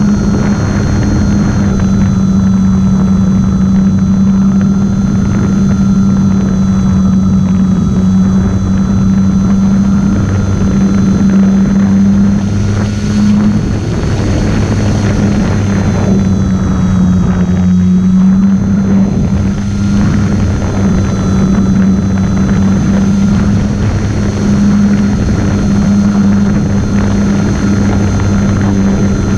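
Electric motor and propeller of a solar-powered model airplane running steadily, with a whine and a rushing noise of air. The pitch dips briefly about halfway through, then comes back up.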